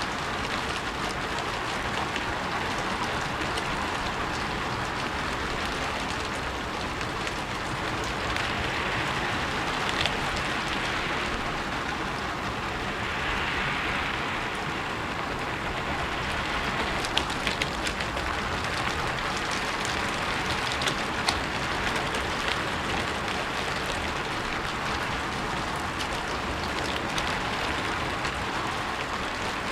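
Steady rain falling on a rooftop: a dense, even patter with scattered louder drips and ticks.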